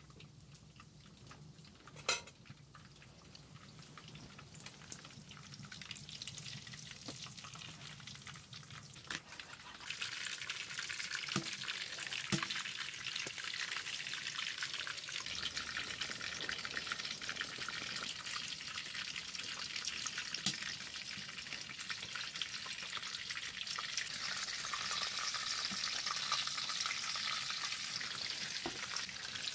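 Food sizzling in a hot pan, the sizzle building and then jumping louder about ten seconds in as it settles into a steady fry, with a few sharp taps of a utensil.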